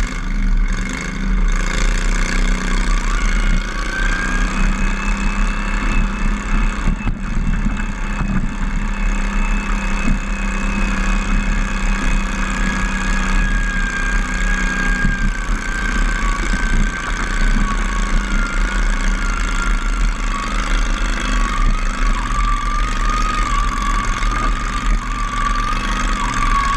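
Modified garden pulling tractor's engine running hard and steady through a pull, heard close up from behind. A high whine rides over it, holding steady and then slowly dropping in pitch over the last several seconds.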